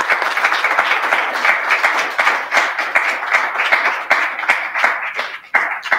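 Audience applauding: many hands clapping in a dense, even patter that dies away right at the end.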